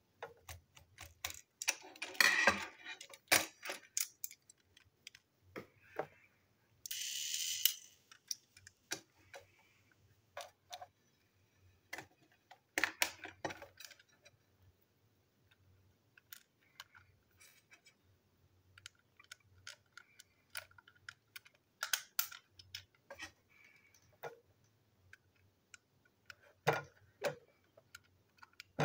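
Irregular small clicks, taps and rattles of a screwdriver against the plastic and metal parts of a toy train engine as it is unscrewed and handled, with a second-long rubbing scrape about seven seconds in.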